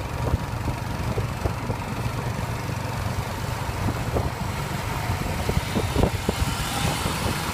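Motor vehicle engine running steadily with a low rumble, with scattered short knocks and rattles.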